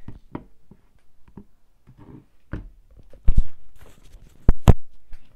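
A run of soft clicks and taps, then loud knocks: a double knock about three seconds in and two more near the end.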